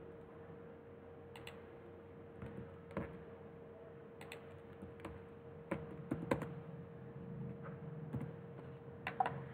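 Computer keyboard keystrokes: about a dozen short, irregular clicks, the loudest near the middle and the end, over a faint steady hum and hiss.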